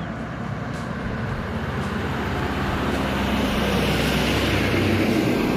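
A truck passing on a highway: tyre and engine noise growing steadily louder to a peak near the end, with a low engine hum beneath.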